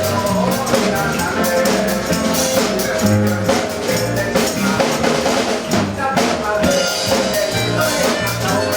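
Live band playing a song, with the drum kit prominent over bass and other pitched instruments.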